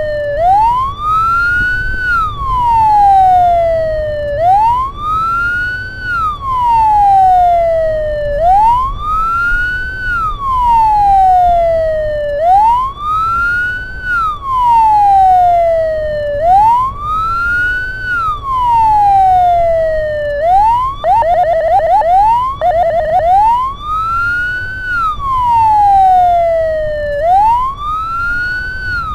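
Ambulance electronic siren on wail, rising and falling in a slow cycle of about four seconds. About two-thirds of the way through it switches twice, briefly, to a rapid yelp before returning to the wail. Low road and engine rumble runs underneath.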